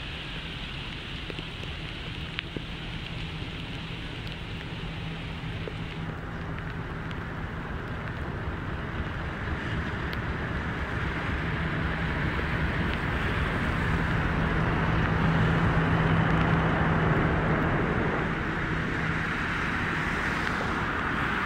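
English Electric Class 50 diesel locomotive approaching and passing close by, its 16-cylinder engine's steady note growing louder until it passes beneath about 18 s in, then the coaches rolling past.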